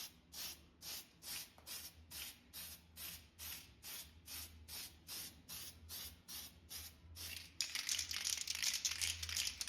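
Aerosol spray paint can hissing in short, regular bursts, about two and a half a second. For the last two seconds it changes to a louder, continuous spray.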